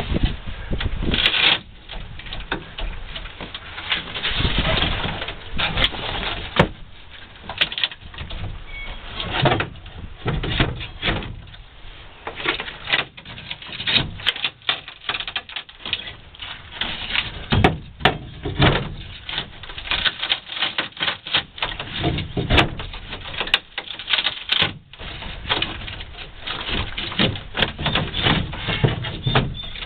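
Long-handled hand tool scraping and prying at an old plywood boat transom, with irregular scrapes and knocks of metal on wood and fiberglass.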